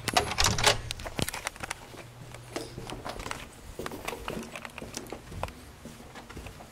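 Footsteps and rustling handling noise: scattered clicks and knocks, busiest in the first second, then sparser.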